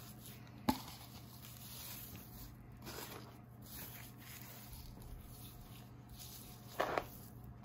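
Hands rubbing and patting a dry herb rub onto an olive-oiled prime rib roast: faint soft, wet handling sounds, with a sharp click about a second in and a brief louder pat near the end.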